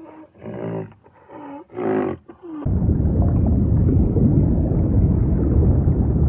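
Animal vocalizations: several short pitched calls in the first two and a half seconds, then a loud, low, rough rumbling call that lasts about four seconds.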